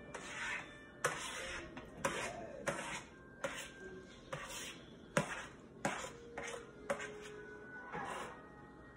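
Metal spoon scraping raw diced chicken off a plate into a frying pan, knocking against the plate and pan edge about once a second.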